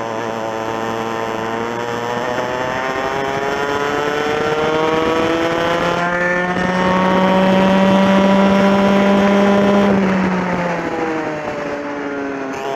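Racing kart's TKM two-stroke engine, heard onboard, climbing steadily in pitch for about eight seconds as it accelerates under full throttle, then dropping sharply near the end as the driver lifts off. A second, steadier engine note, another kart close by, runs alongside through the middle.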